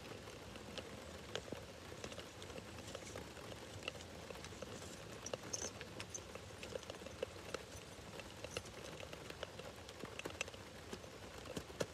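Steady pouring rain pattering, with scattered sharp ticks of single drops landing close by.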